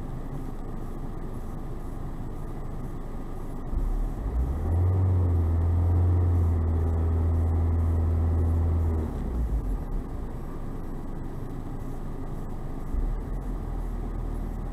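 Peugeot diesel engine, heard from inside the car, idling and then revved about four seconds in, held up for about five seconds and let drop back to idle; a smaller rev comes near the end.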